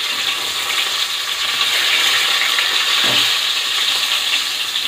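Flour-coated chicken breasts sizzling steadily in shallow oil in a pan, with a metal spatula scraping under them to flip them.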